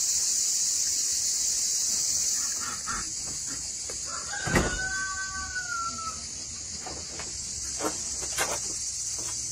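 A rooster crowing once about halfway through, one drawn-out call that falls slightly at the end, over a steady high hiss. A sharp knock comes as the crow begins, and a few light knocks near the end.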